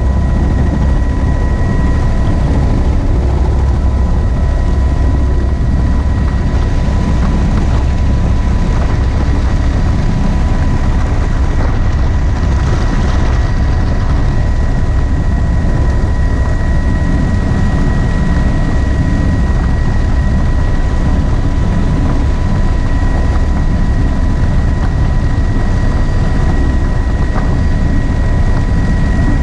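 Helicopter in flight with its doors off: rotor and engine running steadily under heavy rushing wind on the microphone, with a steady high whine.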